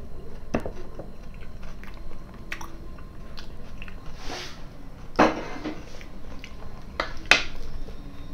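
Close-miked chewing of a mouthful of vinaigrette (beet salad), with small wet mouth clicks. There are two louder sharp sounds about five and seven seconds in.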